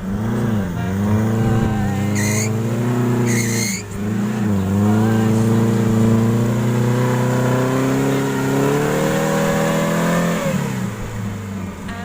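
Off-road vehicle's engine revving hard, its pitch swinging up and down and then climbing steadily for several seconds before dropping away near the end. Two short high squeals sound about two and three and a half seconds in.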